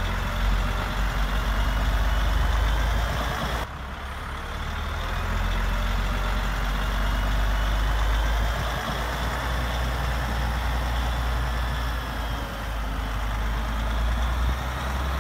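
Truck engine sound from remote-controlled model dump trucks as they drive: a steady low diesel-like rumble with a faint high whine gliding up and down. The sound drops suddenly about four seconds in and builds up again.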